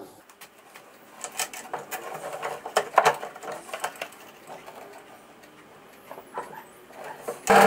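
Light knocks, clicks and scraping as a pine frame is shifted on a drill press table and the quill is brought down to the marks. Near the end the benchtop drill press motor starts up with a steady whine.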